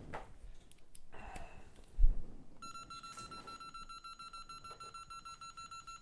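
A single thump about two seconds in, then an electronic beeper sounding one high tone in rapid, even pulses for about four seconds.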